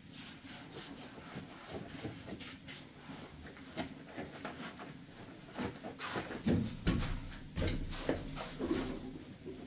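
Steel hand trowel scraping and spreading wet cement mortar on top of a concrete pillar, a run of short scrapes and taps, with louder scrapes and knocks about six to eight seconds in.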